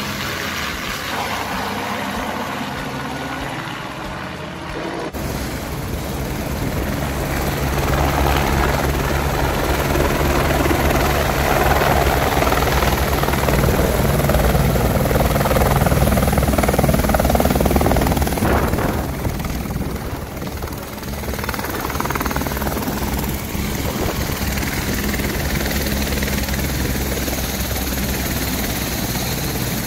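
Helicopter rotor beating steadily as the helicopter flies overhead, then comes down close by onto a field and sits with its rotor still turning. The sound is loudest just past the middle, dips briefly, then holds steady.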